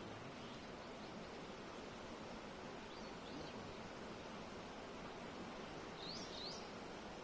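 Steady rush of running water, with a bird chirping faintly about three seconds in and twice near the end.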